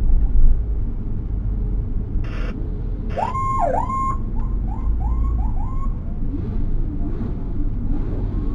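Emergency vehicle sirens in a police and ambulance convoy: short rising chirps repeated about three times a second, broken about three seconds in by a brief horn blast and one siren tone that swoops down and back up, over the low rumble of the vehicle's engine. The chirps fade in the second half.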